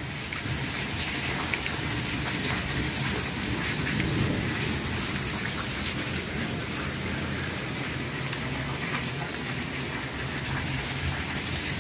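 Heavy rain falling steadily on a wet concrete courtyard, an even hiss of splashing drops.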